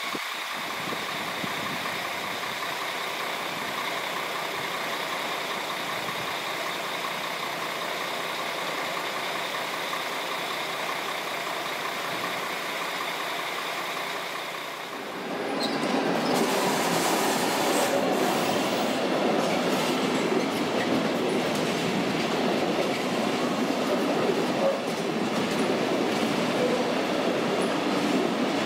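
A train at a main-line station. At first there is a steady hum with a few high held tones. About halfway through, a train rolls past with loud wheel-on-rail noise.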